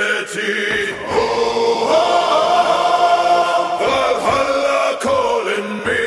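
Background music: a Viking-style song at a wordless choral passage, voices chanting long held notes between verses.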